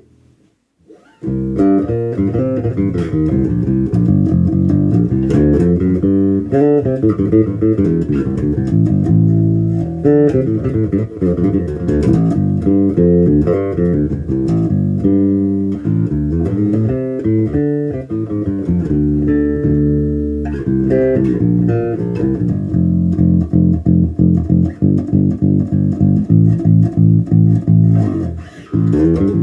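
Harley Benton B-450 electric bass played solo through an aggressive tone, with the bass cut, low and high mids boosted and treble cut just enough to add zing. It plays a busy riff of quick successive notes, starting about a second in, with a brief break near the end.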